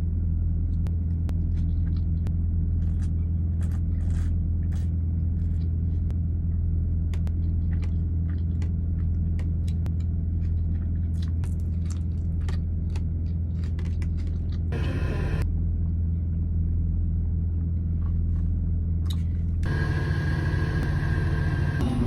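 Steady low hum of a car engine idling, heard from inside the cabin, with scattered small clicks and crackles, such as of food being handled and eaten. A short rush of hiss comes about two-thirds of the way through, and a louder hiss comes near the end.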